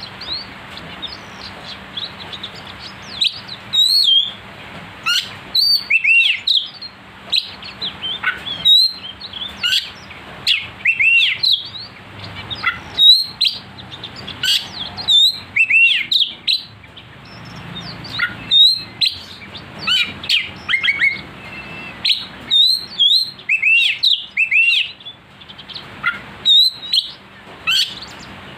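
Oriental magpie-robin (kacer) singing hard: a fast, sharp stream of loud whistled notes and chirps in bursts with brief pauses. This is the aggressive, full-voiced song that keepers play as a lure to rile other kacer.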